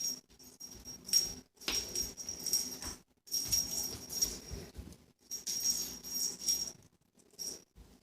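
A cat toy rattling and jingling as it is shaken or batted, in a series of bursts a second or two long with short pauses between them.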